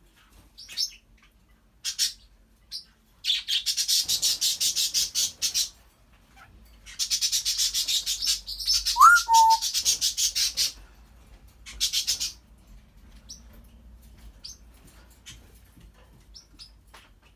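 African grey parrot vocalising: scattered short chirps, two long runs of rapid high clicking chatter and a shorter one, and a single whistle that rises and then holds about nine seconds in.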